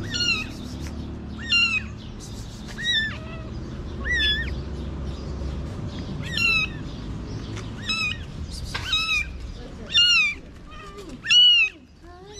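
A small kitten meowing over and over, with high-pitched, thin cries about once a second.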